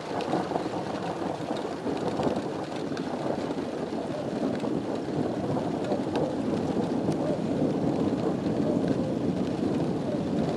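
Heavy rain falling steadily in a thunderstorm, a dense hiss with scattered sharp drop ticks, growing slightly louder.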